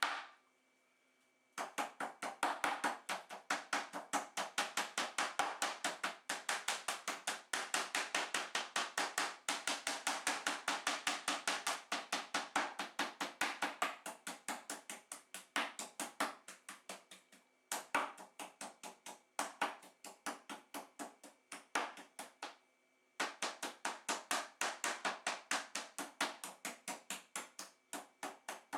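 Meat tenderizing hammer pounding a deer backstrap in quick, even strokes, about four a second, with two short pauses.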